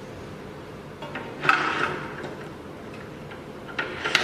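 A few sharp metallic clicks and knocks as an automobile key clamp is fitted and secured on an SEC-E9 CNC key cutting machine: one about a second in, a louder one with a short ring about a second and a half in, and two more near the end.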